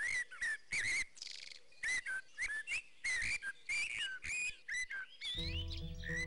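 Birds singing outdoors in quick, repeated whistled chirps that slide up and down in pitch. A music track with a low held bass comes in about five seconds in.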